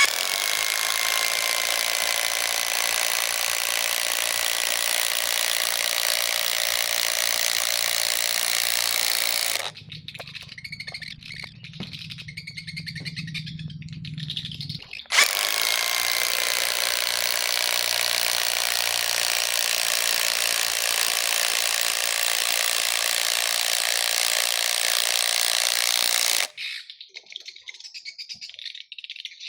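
Dagmara DTD173 cordless impact driver running at full speed in two long runs of about ten seconds each. Between the runs there is a quieter stretch with a low hum.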